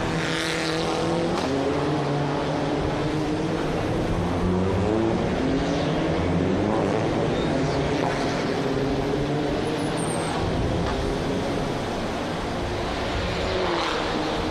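Touring race car engines running hard past the trackside microphones, their pitch rising and falling as the cars accelerate and lift.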